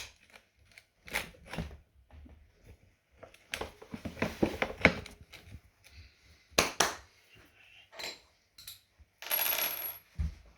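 Small metal tools and parts clinking and knocking as they are handled and set down, in irregular sharp clicks, with a short quick rattle near the end.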